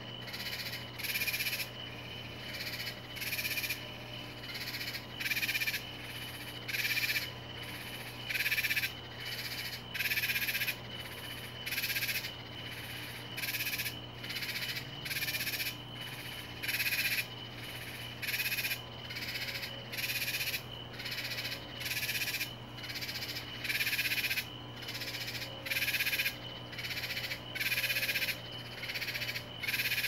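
Backyard night chorus of calling animals: short raspy calls repeating about once or twice a second, alternating louder and softer as if from more than one caller, over a steady thin high tone and a low steady hum.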